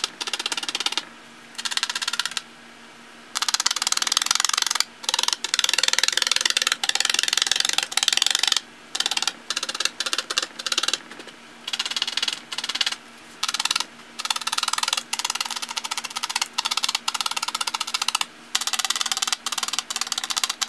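Two size 38 star felting needles jabbed rapidly into a woven upholstery cushion, a dense run of crisp ticks in spells of one to several seconds with short pauses between. The needles are pushing snagged loops back into the fabric.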